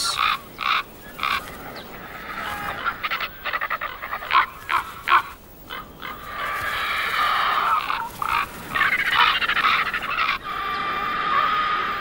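Ravens and griffon vultures squabbling over a carcass, giving harsh calls. Short sharp calls come in the first half; from about halfway, longer rasping stretches follow, broken by brief gaps.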